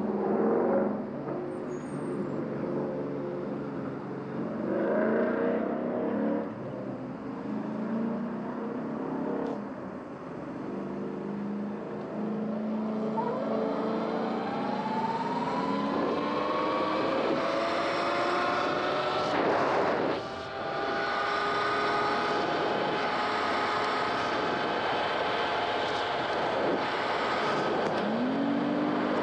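Surrounding car traffic at an intersection, then the Sur-Ron X electric dirt bike's motor whine rising in pitch as it pulls away and holding steady at cruising speed. A short rush of noise comes about two-thirds of the way through.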